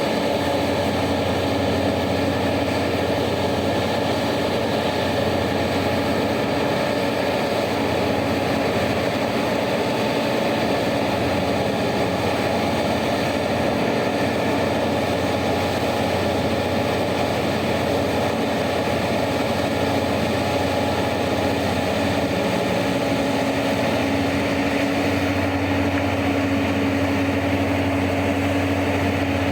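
Heavy mining machine's diesel engine running steadily, its low hum growing a little stronger near the end.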